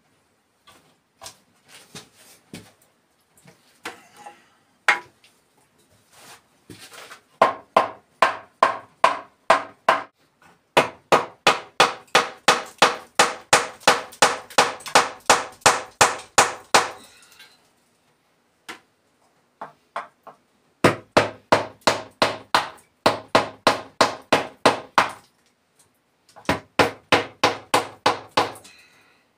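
Hammer blows on the wooden window frame: runs of quick, even strikes, about four a second, that stop and start several times.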